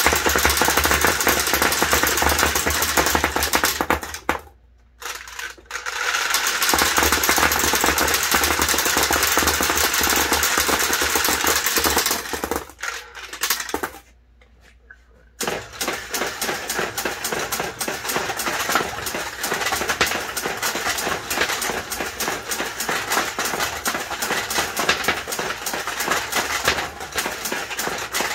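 Steel balls clattering in a mechanical pachinko machine: two long runs of dense metallic rattling, each cut off by a short silence, then, about halfway through, a sparser, steady stream of rapid clicks and clatter that lasts to the end.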